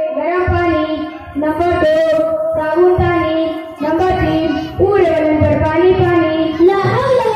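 A boy singing into a microphone in long held notes that waver slightly, phrase after phrase with short breaks between them.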